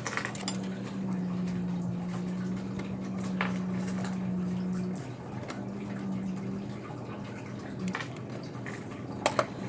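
Small metal clicks and ticks of a tiny screw being driven into a laptop case with a small screwdriver, a few separate clicks with a close pair near the end, over a steady low hum.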